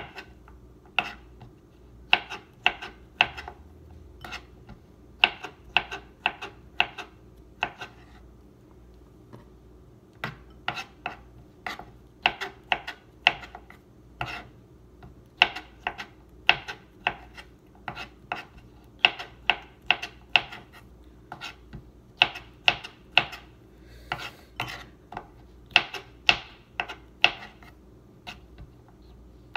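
Small kitchen knife slicing black olives into rings on a plastic cutting board: sharp taps of the blade against the board, about three a second in runs of several, with short pauses between runs.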